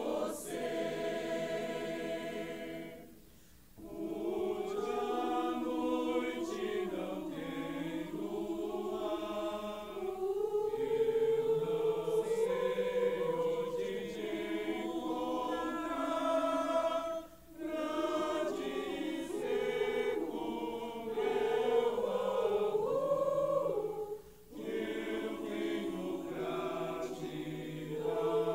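A choir singing a slow song in long held phrases, with three brief breaks between phrases.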